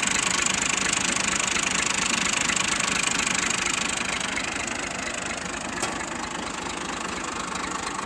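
Diesel farm tractor engine running steadily, heard close up from behind the tractor, with an even low throb.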